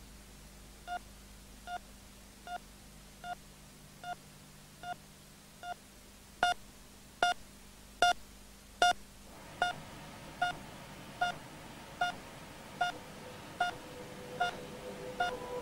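Hospital cardiac monitor beeping with each heartbeat, a short pitched beep about every 0.8 seconds. Four beeps in the middle are louder, and a steady higher tone comes in near the end.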